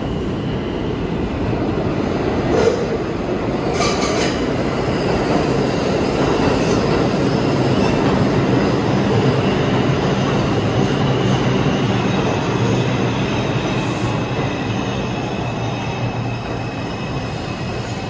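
An R142-family New York subway train runs into the station along the platform with a steady loud rumble. Two sharp wheel clacks come a few seconds in. A thin high wheel squeal and a low motor hum build as the cars go by.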